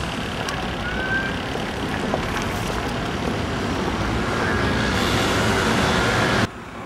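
City street traffic: a steady rumble of passing cars, growing louder toward the end and then cutting off suddenly.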